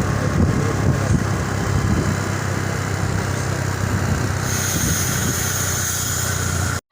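Bus's diesel engine running with a steady low rumble and road noise. A faint high whine joins about two-thirds of the way in, and the sound cuts off suddenly near the end.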